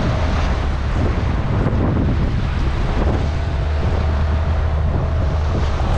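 Strong wind blowing across the microphone: a heavy steady low rumble under a rushing hiss, from a squall that has just blown up.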